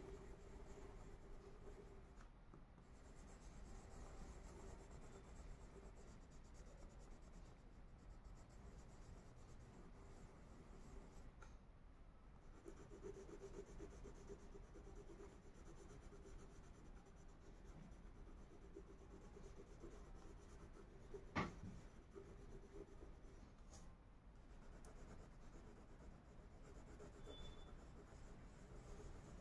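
Faint scratching of a Faber-Castell wax crayon rubbed back and forth on paper as a picture is coloured in, with a single sharp click about three-quarters of the way through.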